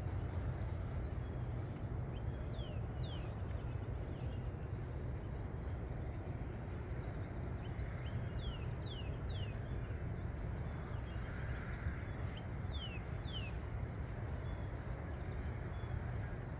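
Steady low outdoor rumble with a bird calling over it: short, high, downward-sliding chirps in groups of two or three, a few seconds in, around the middle, and again a few seconds later.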